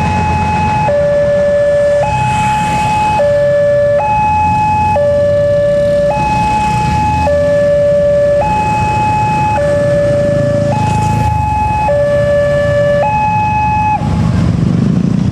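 Railway level-crossing warning alarm: an electronic two-tone signal alternating between a high and a low note about once a second, stopping near the end, over the rumble of road traffic.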